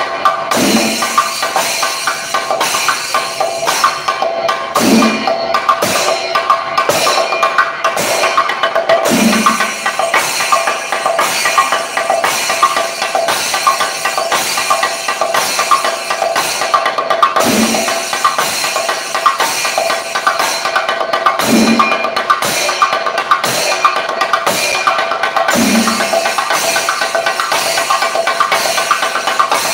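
A chenda melam ensemble: a row of chenda drums beaten with sticks in a fast, continuous roll, with a steady ringing over the drumming. A deeper accented stroke comes about every four seconds.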